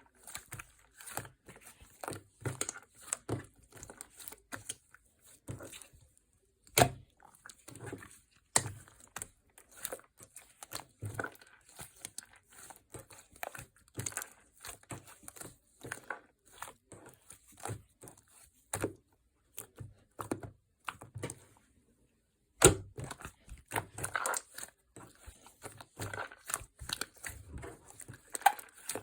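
Fluffy foam slime being squished, stretched and poked by hand, giving dense irregular sticky clicks and crackles, with a pause of about three seconds past the middle.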